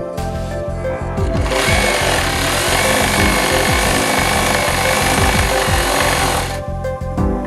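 JUKI DDL-5530 single-needle lockstitch industrial sewing machine running at speed, its fresh oil just changed, starting about a second and a half in and stopping about five seconds later, over background music.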